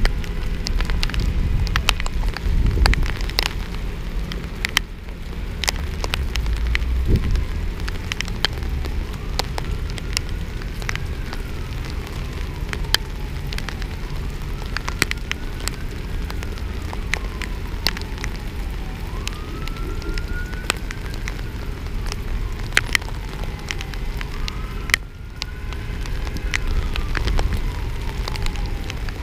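Heavy rain falling, with many sharp clicks of drops striking the camera. From about a third of the way in, an emergency vehicle siren wails in a slow rise and fall, repeating every few seconds.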